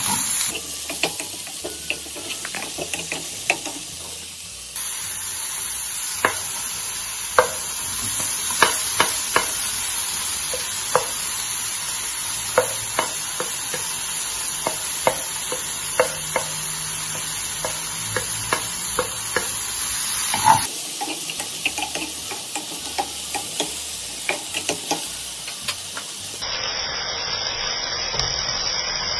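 Chopped vegetables stir-frying in oil in a frying pan: a steady sizzle, broken by frequent sharp taps and scrapes as a wooden spatula turns them.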